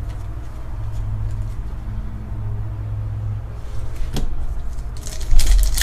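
Trading cards being handled, with a click about four seconds in and a loud thump about five and a half seconds in, over a steady low rumble.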